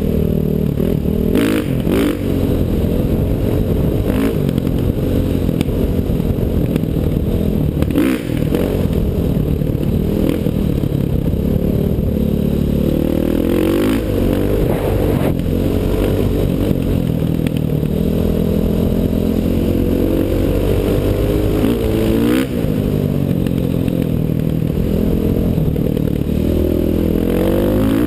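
KTM 500 EXC enduro bike's single-cylinder four-stroke engine under way, heard from a helmet-mounted camera, revving up and easing off again and again as the bike is ridden along a dirt trail. A few sharp knocks and clatter from the bike going over the rough ground are mixed in.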